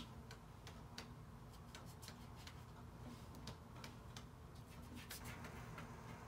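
Faint, irregular light ticks and taps of a paintbrush dabbing on paper, over quiet room tone.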